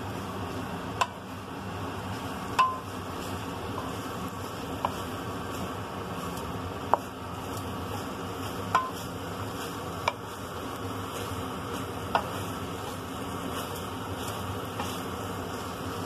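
Wooden spatula stirring a squid-ink stir-fry in a frying pan, knocking against the pan about eight times with short, ringing clicks every one to two seconds, over a steady hiss.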